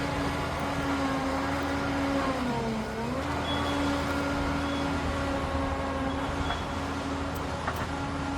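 Liebherr PR 746 Litronic crawler dozer's diesel engine running steadily. Its pitch sags briefly about two and a half seconds in, then recovers.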